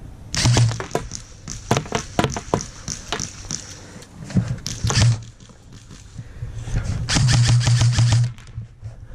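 Airsoft rifle firing in several rapid bursts of sharp clicks, with a low mechanical hum under each burst. The longest burst comes near the end and lasts about a second and a half.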